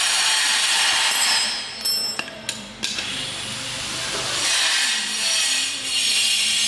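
A loud rasping, scraping noise that dips in the middle, with a few sharp clicks between about two and three seconds in.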